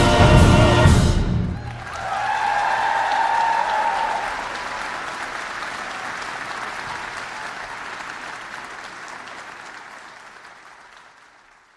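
Choral and orchestral music ends on a loud final chord about a second and a half in, followed by crowd applause that slowly fades out.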